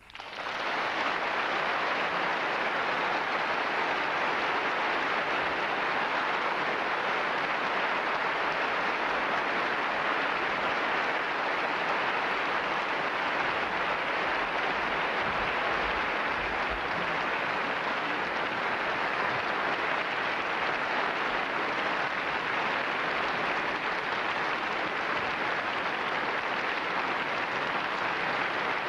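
Audience applauding: dense, even clapping that breaks out at once and holds steady.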